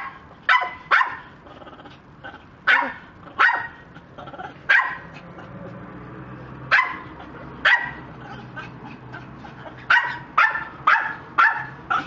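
Short, sharp barks, each dropping slightly in pitch, come singly and in pairs, then in a quick run of five near the end.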